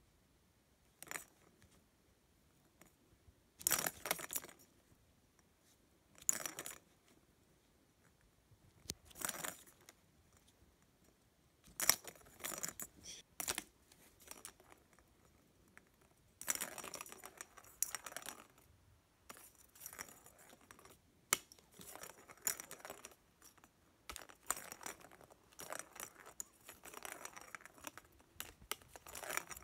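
A plastic ball clattering and rolling around the track of a plastic cat ball-track toy as a kitten bats at it. It comes in short jangly bursts with sharp clicks, a few seconds apart at first and nearly continuous in the second half.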